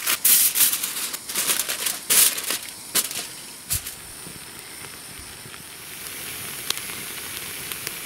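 Aluminium foil crinkling and tearing in quick crackles for about three seconds as it is pulled off the roll and pressed over a frying pan as a makeshift lid. After that, a steady sizzle of grated yam frying in butter.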